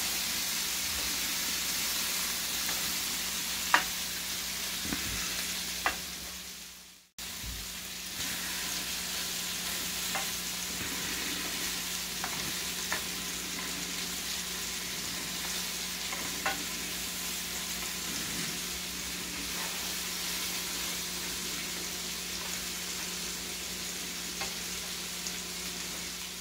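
Steaks searing in a grill pan and vegetables frying in a skillet: a steady sizzle, with a few sharp clicks of the utensils against the pans. The sound drops out briefly about seven seconds in and comes straight back.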